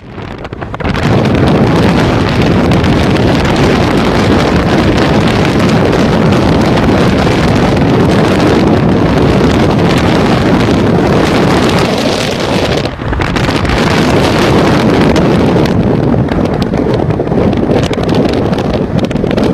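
Wind buffeting a microphone: a loud, steady rush of wind static that swells in over the first second and dips briefly about two-thirds of the way through.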